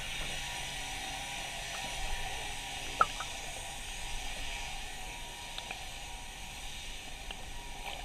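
Steady outdoor hiss of open water and breeze around a fishing boat, with one sharp click about three seconds in.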